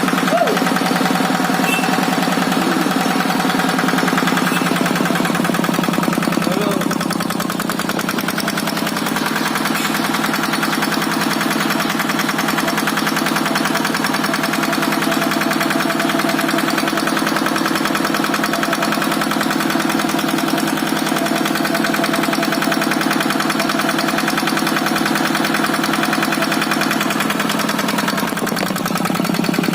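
Kubota RD65DI single-cylinder diesel engine running steadily, with a rapid, even beat of firing strokes.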